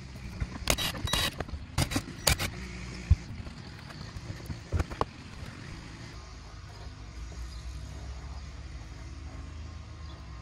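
A cordless impact driver being handled: a run of sharp clicks over the first two and a half seconds, then a couple of knocks about five seconds in as it is set down on the cargo floor. After that only a steady low rumble, like passing traffic.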